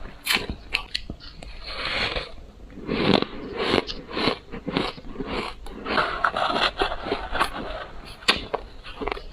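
Ice being bitten and chewed close to the microphone: a run of sharp cracks and crunches, irregular, spread through the whole stretch.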